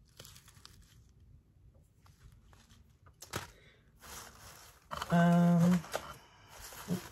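Small packets of herbs rustling and clicking as they are handled, then a brief steady low hum about five seconds in.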